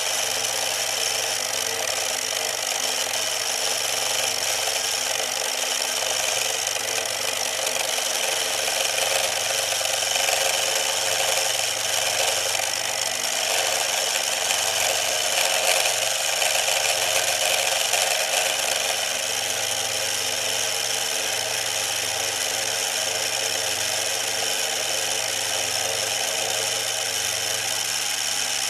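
Mini milling machine with a brushed DC motor, its end mill cutting aluminium: a steady motor and spindle whine over the noise of the cut, a little louder for a stretch in the middle.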